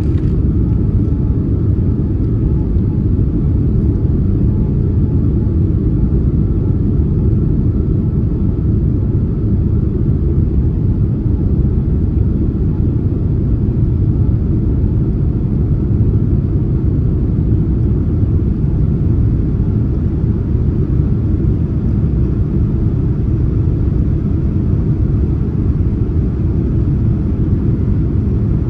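Steady, even cabin rumble inside a Boeing 787-9 climbing out after takeoff: engine and airflow noise heard from a window seat, with no changes or distinct events.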